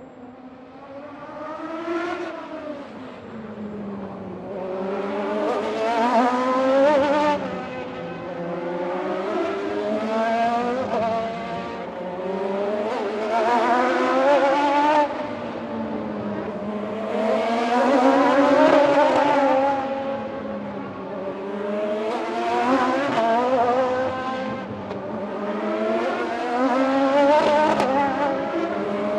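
Racing motorcycles at full throttle, one after another, their engine notes repeatedly climbing in pitch and dropping again as they rev through the gears and pass. The sound builds up from faint over the first few seconds.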